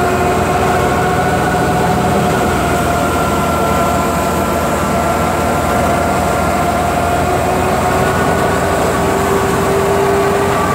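Tractor-driven wheat thresher running: a loud, steady mechanical drone with several steady whining tones on top.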